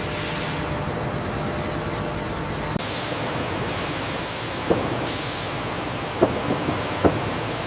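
Steady industrial machinery noise with a hiss that changes abruptly about a third of the way in, and three sharp knocks in the second half, a second or so apart.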